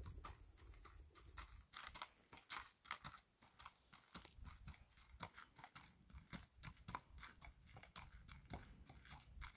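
Faint, irregular crunching of a horse's hooves and a handler's boots on gravel as the horse is led at a walk.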